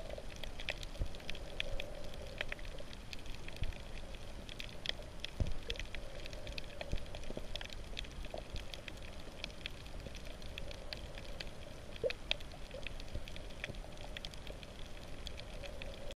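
Underwater reef ambience picked up by a submerged camera: a steady low water noise with many faint, irregular clicks and crackles scattered throughout.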